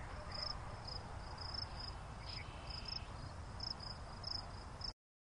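Crickets chirping: short, high chirps at one steady pitch, about two a second, over a faint low rumble, all cutting off suddenly near the end.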